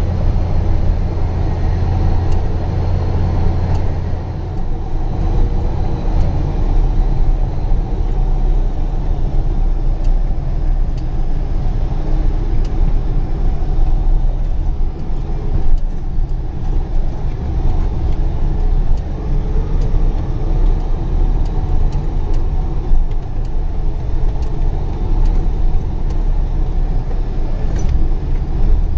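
Truck engine pulling steadily, heard from inside the cab as a loud low drone; its note drops about four seconds in. Scattered light clicks and rattles come from the cab jolting over a rough dirt road.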